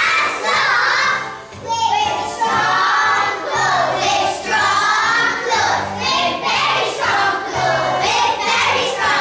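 A group of young children singing a song together in unison over an accompaniment with a steady bass line, with a brief break between lines about one and a half seconds in.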